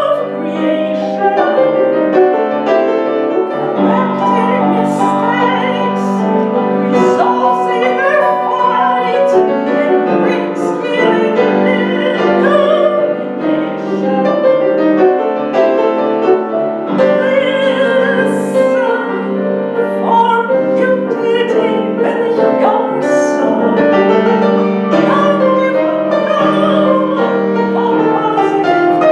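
Piano accompaniment with a woman singing a song in a full, operatic-style voice.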